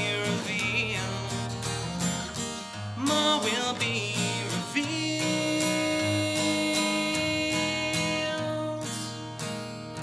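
Acoustic guitar strumming at the close of a folk-pop song, with a few sung notes and then a voice holding one long note for about four seconds. The strumming eases off near the end as the song winds down.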